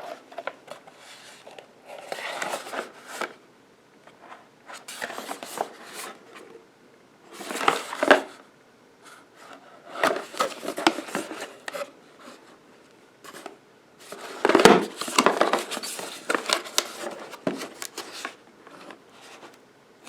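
Hands handling small hard objects: irregular bouts of rubbing, scraping and clicking a second or two long, with short quiet gaps between and the loudest bouts about eight and fifteen seconds in.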